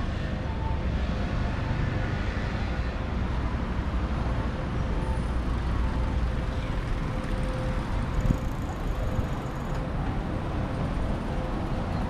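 Street traffic: road vehicles passing with a steady low rumble, heaviest in the first half, and a faint steady hum. A single short click about eight seconds in.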